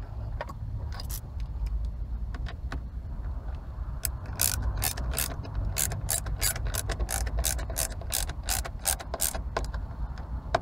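Ratcheting screwdriver clicking as a screw is driven into the cruise control switch mount: a few scattered clicks, then a quick regular run of clicks, about four a second, from about four seconds in until near the end.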